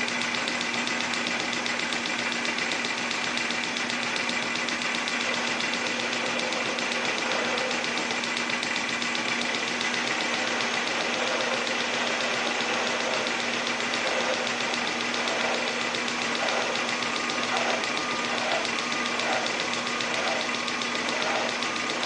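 Metal lathe running steadily while roughing out the internal Morse taper 4 in an adapter sleeve, the tool cutting metal, with a steady hum under it. In the second half a faint pulsing comes in, about once every three-quarters of a second.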